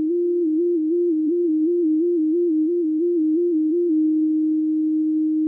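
Electronic film-score tone, a single pure theremin-like note wavering between two close pitches about three times a second, then holding one steady note near the end.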